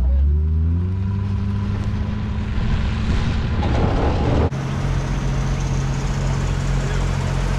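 Tow vehicle's engine pulling away, its pitch rising over the first second and then holding steady, with road and wind noise building. The sound cuts off abruptly about four and a half seconds in, and an engine then runs steadily at a lower, even pitch.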